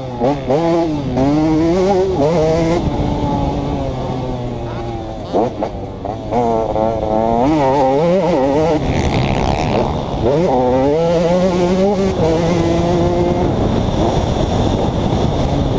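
2011 KTM 150 XC two-stroke dirt bike engine under hard riding, its pitch climbing again and again as the throttle is opened and dropping back on shifts and throttle-off.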